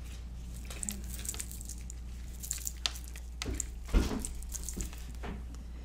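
Quiet handling sounds of a small packet being opened and its contents taken out: scattered light clicks and crinkles, with a soft thump about four seconds in, over a steady low electrical hum.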